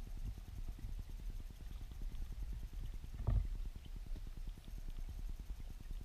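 Underwater sound of a weirpool through a submerged camera: a dense, rapid low crackle and rumble of moving water, with one louder knock a little past halfway.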